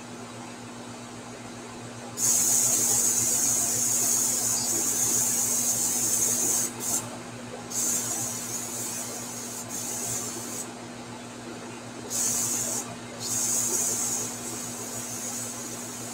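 Airbrush spraying paint with a high hiss that starts about two seconds in and comes in spurts, cut off briefly several times as the trigger is released. A steady low hum runs underneath.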